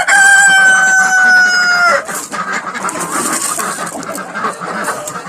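A rooster crows, a long held note of about two seconds that dips in pitch as it ends, followed by chickens clucking.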